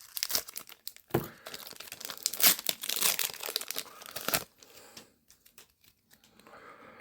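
Foil wrapper of a Pokémon Scarlet & Violet 151 booster pack being torn open and crinkled, a few seconds of ripping and crackling from about a second in, then fainter handling sounds near the end.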